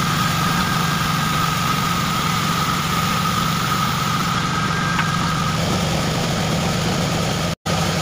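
Sawmill band saw running steadily with a constant hum and a high whine while a plank is fed through the blade. The sound drops out for an instant near the end.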